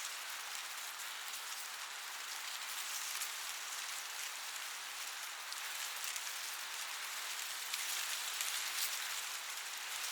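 Wind blowing through a cornfield, the corn leaves rustling in a steady, high hiss that grows a little louder about eight seconds in.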